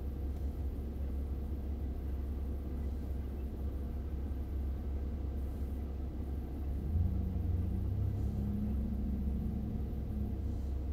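Electric hand mixer running steadily, its beaters whipping egg whites into a fluffy batter as yolk is added. About seven seconds in the motor note changes and gets a little louder.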